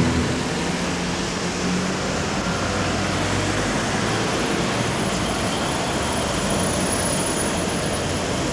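Steady road-traffic noise from a queue of cars, an even rumble and hiss with no single event standing out.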